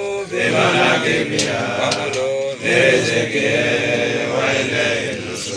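Men's voices chanting a prayer in long drawn-out phrases that rise and fall, with a short break about two and a half seconds in.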